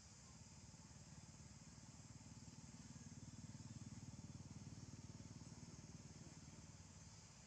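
Faint low engine rumble of a distant passing vehicle, swelling to its loudest about halfway through and fading again.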